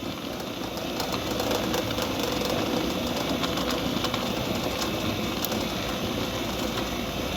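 Centurion D5 Evo sliding gate motor running steadily as it drives the gate, an even mechanical hum with a steady mid-pitched tone.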